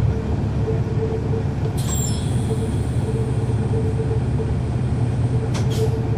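Cummins ISL9 diesel engine of a 2011 NABI 40-SFW transit bus running, heard from inside the cabin as a steady low drone with a faint higher hum. A short high hiss comes about two seconds in, and a pair of sharp clicks near the end.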